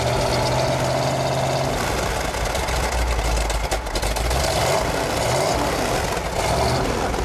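A 1971 Plymouth Hemi 'Cuda's 426 Hemi V8 running steadily, heard close to its exhaust outlets.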